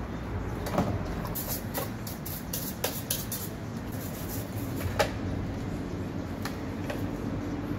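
A few knocks and light clicks of a hard plastic leaf blower housing being picked up, set down and turned over by hand, with a cluster of small clicks in the first half, over steady background noise.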